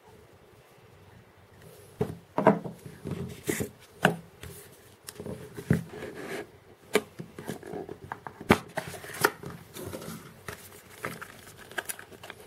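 Hands handling cardboard packaging on a wooden tabletop: scattered knocks, taps and rubbing of cardboard, starting about two seconds in.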